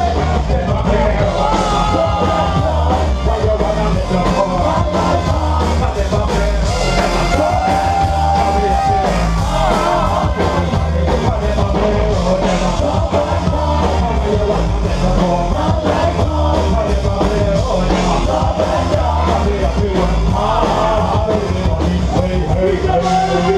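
Live dub band playing, with a heavy, steady bass line and a lead singer's vocals over it.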